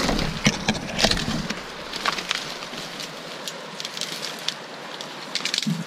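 Dry twigs and brush crackling and snapping in quick irregular clicks as someone pushes through a dense thicket on foot, with a low rumble in the first second and a half.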